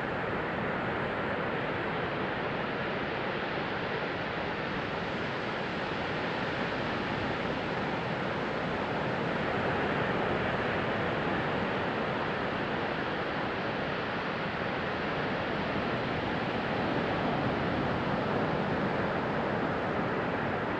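Sea waves washing onto a beach: a steady rush of surf that swells gently twice, around the middle and again near the end.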